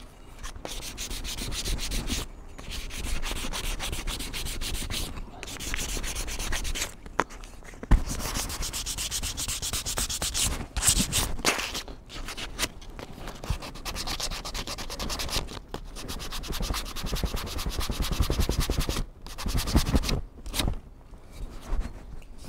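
Sandpaper rubbed in quick back-and-forth strokes along the wooden handle of a small forged hatchet, smoothing the bare wood. The strokes come in runs with short pauses, and a single sharp tap sounds about eight seconds in.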